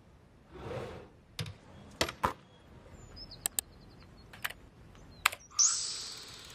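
Laptop keys being tapped: a handful of separate sharp clicks spread over several seconds, after a soft swish. Near the end a bright whoosh sets in.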